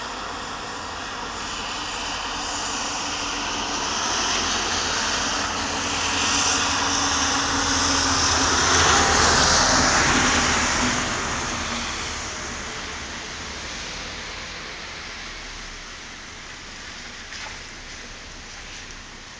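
An aircraft passing overhead: a rushing engine noise that swells to a peak about nine seconds in, carrying a low hum that drops slightly in pitch, then slowly fades.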